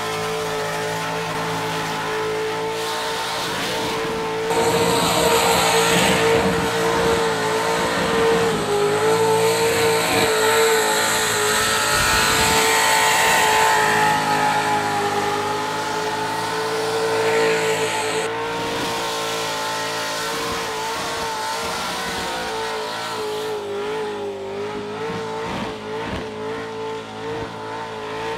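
Car engine held at high revs in a burnout, a steady high note throughout, with the spinning tires squealing and hissing loudest from about four seconds in until about eighteen seconds. Near the end the engine note wavers and drops slightly.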